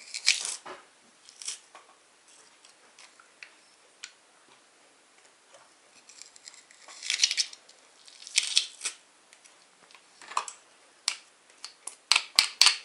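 Metal garlic press being squeezed and worked, giving sharp metallic clicks and scrapes at irregular intervals as garlic is pressed out. Near the end comes a quick run of clicks as a metal spoon scrapes and taps the garlic off the press.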